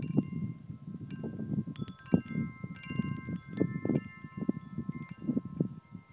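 Metal tube wind chimes struck irregularly by the breeze, several clear notes ringing on and overlapping, over a low, gusty wind rumble.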